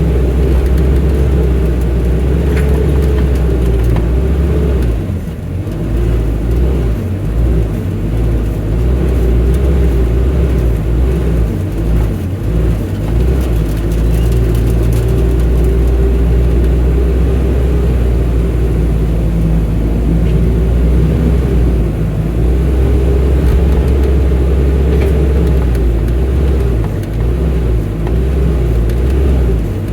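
Excavator's diesel engine running loud and steady, its low drone dipping and wavering unevenly between about five and thirteen seconds in as the load changes.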